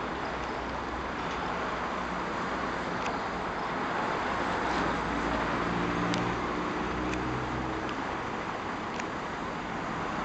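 Steady hum of distant city traffic, with a low engine drone rising and fading away in the middle.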